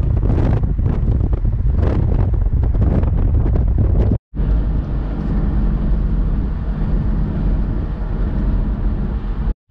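Heavy wind buffeting the microphone over a low, steady road and engine rumble, as from a moving car. The sound drops out abruptly for a moment about four seconds in and again near the end.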